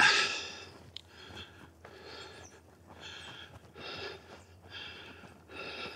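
A man breathing hard close to the microphone, about one loud breath a second, the first the loudest; he is winded after a steep uphill climb.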